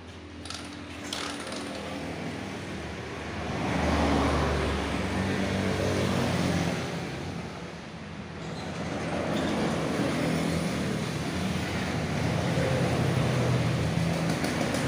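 An engine running, its speed rising about four seconds in, easing off around eight seconds, then rising again.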